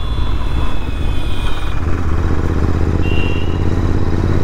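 Royal Enfield Interceptor 650's parallel-twin engine running under way, with road noise; about two seconds in the engine sound grows fuller and stays so. A short high beep sounds about three seconds in.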